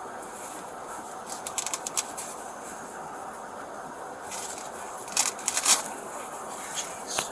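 Steady background hiss with two short clusters of rustling, scraping clicks, a little after a second in and again, louder, around five seconds in.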